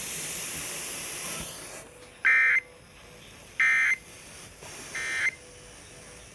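Emergency Alert System broadcast ending: radio hiss for about two seconds, then three short, identical electronic data bursts about a second and a half apart, the end-of-message code that closes the tornado warning.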